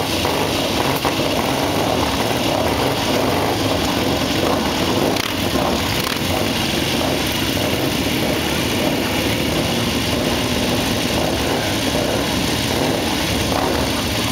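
Several English motorcycle engines running together at idle, a steady loud mix with no revving.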